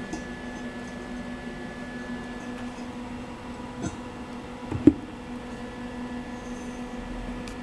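A cast-iron pillow block bearing knocked against steel tubing, two short knocks about four and five seconds in, the second louder, over a steady electrical hum.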